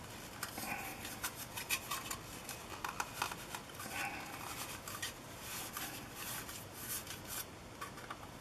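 Hard plastic petal lens hoods being handled by hand: irregular light clicks and taps of plastic against plastic, with some rubbing.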